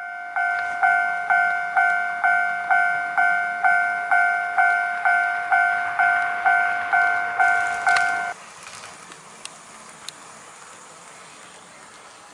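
Model railway level-crossing signal ringing its electronic warning ding, about two rings a second, cutting off abruptly about 8 seconds in. Then the faint rolling of the HO-gauge train on the track, with a few light clicks.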